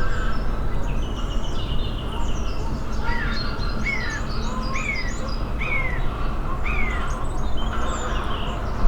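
Several woodland birds singing together, one repeating a clear swooping note about every three-quarters of a second for a few seconds midway, over a steady low background rumble.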